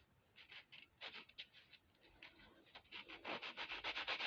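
Sanding block rubbed back and forth over a small metal clasp in short scratchy strokes, taking dried patina off the raised surface. The strokes are scattered at first, then come faster and louder over the last second or so.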